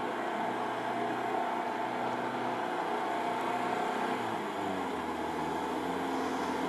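Lada Niva's engine running under load as the vehicle crawls through deep mud and water. Its pitch dips about four and a half seconds in, then holds steady again.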